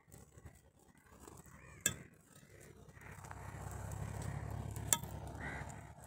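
Faint background noise with two sharp clicks, one about two seconds in and another near five seconds, and a low hum that swells from about three seconds in.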